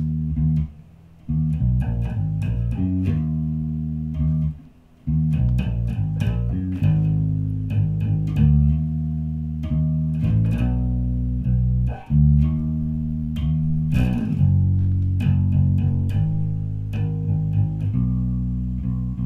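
Electric bass guitar playing a blues-rock riff of held low notes that change pitch every second or so. It includes a slide up into an E, and the playing breaks off briefly about a second in and again around five seconds in.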